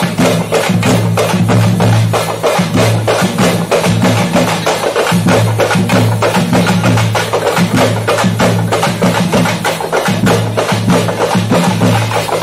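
Live procession drumming: drums struck hard in a fast, dense rhythm to accompany kavadi attam dancing, with a low tone underneath that comes and goes.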